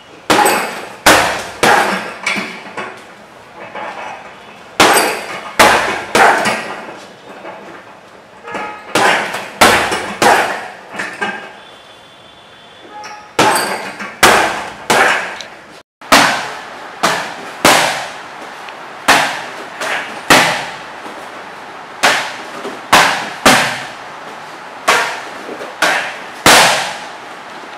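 Boxing-gloved punches and bare-shin kicks smacking into a heavy bag and then, about halfway through, into Thai pads. The sharp strikes come in quick sets of two or three, a jab, inside low kick and right cross combination, each with a short ring of room echo.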